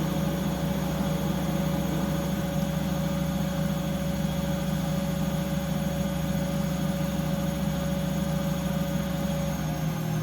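Washing machine running with a steady motor hum and a whine. The deepest part of the hum drops away near the end.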